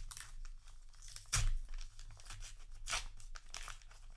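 Plastic-foil trading-card booster pack wrapper being crinkled and torn open by hand, in irregular crackling rips with the loudest tears about a second and a half in and again about three seconds in.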